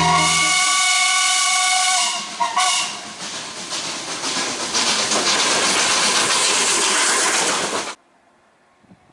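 Steam locomotive whistle blowing a steady chord for about two and a half seconds, then a loud rushing hiss of steam from the engine. The sound cuts off suddenly about eight seconds in, leaving near silence.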